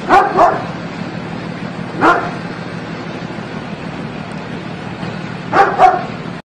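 A dog barking in short barks: two quick ones at the start, a single one about two seconds in, and two more near the end, over a steady rushing background noise.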